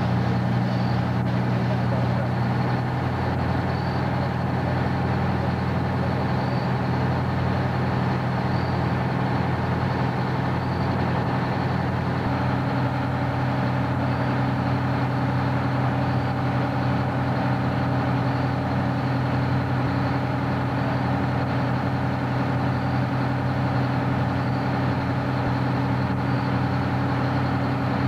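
Fire engine running steadily at the fireground, a constant low engine drone while its hose lines are flowing, with a slight change in tone about twelve seconds in.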